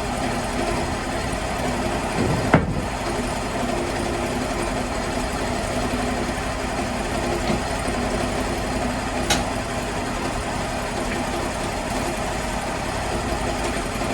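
Sawmill engine running steadily, with a sharp knock about two and a half seconds in and a fainter click near nine seconds.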